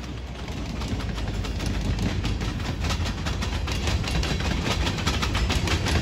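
Freight cars, covered hoppers followed by tank cars, rolling past on the rails: a steady low rumble of wheels on track with a quick run of clicks and clatter, growing louder.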